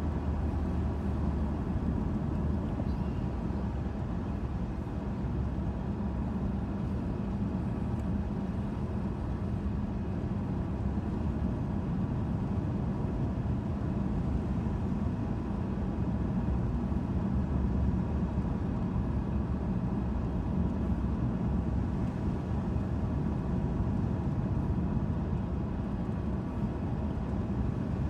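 Steady road noise heard from inside a moving car: a low engine hum with tyre noise on asphalt at an even cruising speed.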